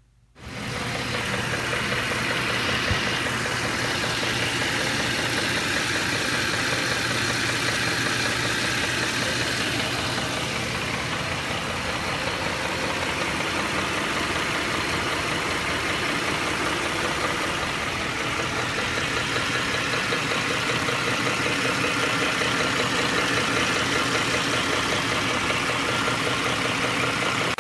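Ford 5.4L three-valve Triton V8 idling hot, running steadily with the knock of a faulty cam phaser, a fault most common on the right-hand bank. Heard from underneath near the transmission, where the knock carries down the pipe toward the torque converter.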